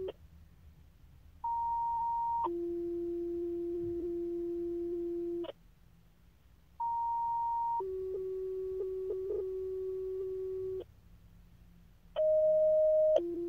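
Fire dispatch two-tone sequential paging tones sounding from Motorola radios during a pager test: a higher steady tone for about a second, then a lower one held for about three seconds. The pair comes three times with short silent gaps, each time with a different tone combination to set off a different set of pagers.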